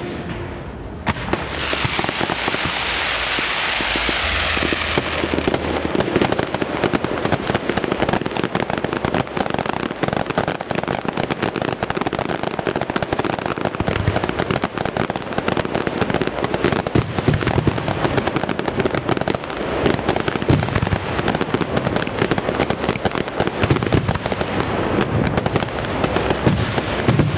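Fireworks display with a dense, continuous stream of rapid cracks, pops and bangs from bursting shells and crackling stars. About a second in, a loud rushing hiss starts and fades out after a few seconds.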